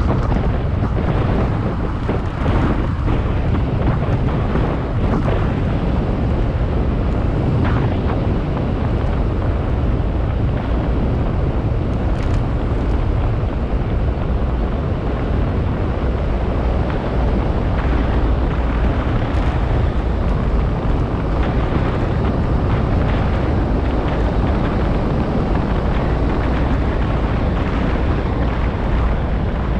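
Loud, steady low rumble with wind noise on the microphone, unbroken throughout.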